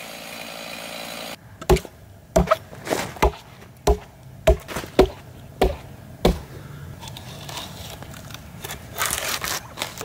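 Axe blows striking the bark of a freshly cut log: about eight sharp knocks, roughly one every half second or so, then a crackling, scraping noise near the end.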